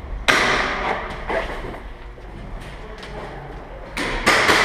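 Sharp knocks or cracks ringing out in a large echoing hall: one about a quarter-second in, a weaker one about a second later, and a quick run of three near the end.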